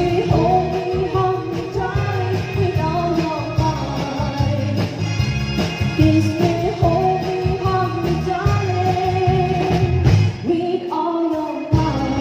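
Live band playing an upbeat pop song, with a woman singing the lead over electric bass guitar and keyboard and a steady beat. The bass and beat drop out briefly near the end, then the band comes back in.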